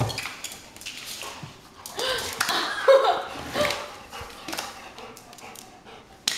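A large dog scrambling about on a tile floor during play, its claws and paws making scattered clicks and knocks, with a few short high cries in the middle and one sharp knock near the end.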